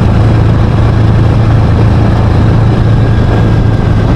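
Small motorcycle engine running at a steady cruise, a constant drone with wind and road rush over the rider's camera.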